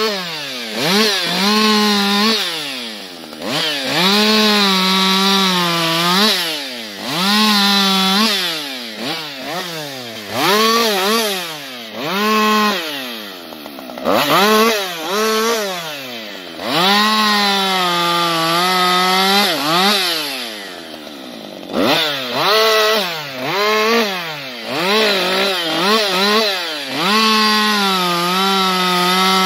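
Husqvarna 560XP II chainsaw, a 60 cc single-cylinder two-stroke, running at full throttle in a cut and held at high revs for stretches of a few seconds. Between stretches the revs drop back and rise again, with a run of short quick throttle blips in the middle.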